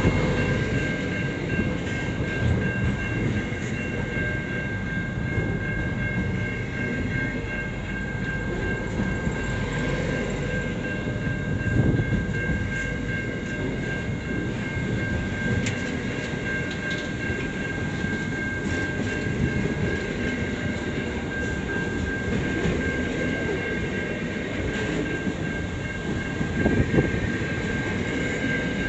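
Freight train's container wagons rolling past close by: a steady rumble of wheels on rail with occasional knocks, and a constant high ringing tone over it.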